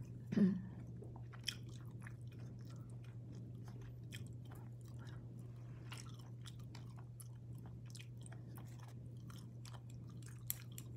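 A person chewing food close to a phone microphone, with faint scattered small mouth clicks over a steady low hum. Near the end, a few sharp clicks of wooden chopsticks.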